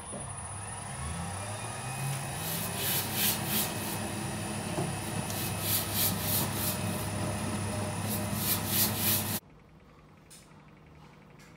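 Electric slime mixer running and churning a batch of slime: a motor hum that rises in pitch as it speeds up, under a rubbing, scraping noise. It cuts off suddenly about nine seconds in.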